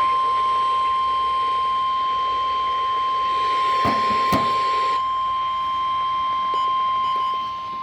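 NOAA Weather Radio warning alarm tone: a single steady high-pitched tone of about 1050 Hz held unbroken, announcing a tornado warning. Two sharp clicks sound about four seconds in.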